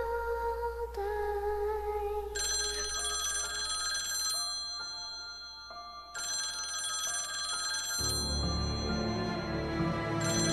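Mobile phone ringing with an incoming call, the ring sounding in bursts of about two seconds with gaps between. A slow held melody plays at the start, and a low music bed comes in near the end.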